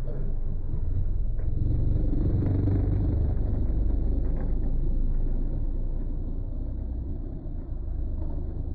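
Car engine running with a deep low rumble, swelling about two to three seconds in and easing a little near the end.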